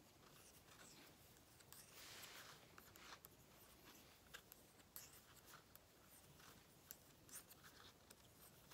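Near silence with faint, irregular light ticks and rubbing from knitting needles and cotton yarn as stitches are knit by hand.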